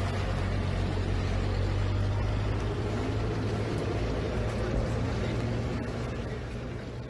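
Vehicle engines running with a steady low hum under a constant rushing noise.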